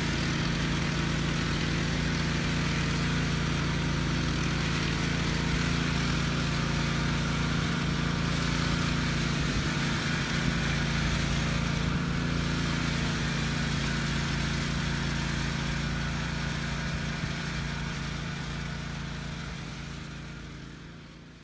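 Gasoline power trowel's engine running at a steady speed, fading out over the last few seconds.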